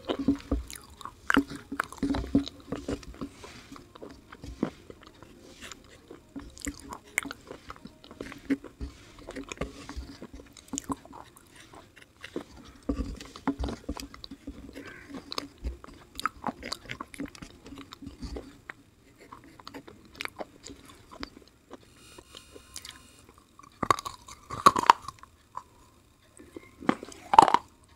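Close-miked chewing and crunching of black slate pencil and white paste, with wooden sticks scraping through the paste in a clay bowl. Louder crunchy bites come twice near the end.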